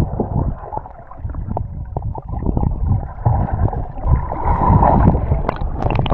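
Muffled sloshing and gurgling of sea water around a waterproof camera, with scattered knocks against it.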